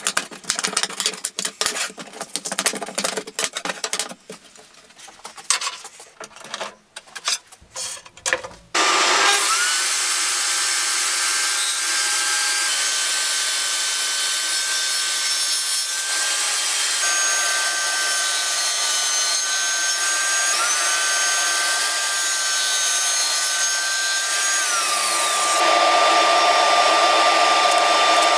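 Wooden strips knocking and clattering as they are handled on a bench, then a table saw starts and runs steadily while a hardwood board is ripped, its pitch dipping briefly each time the blade takes the cut. Near the end the saw motor winds down, leaving the steady rush of a dust extractor or shop vacuum.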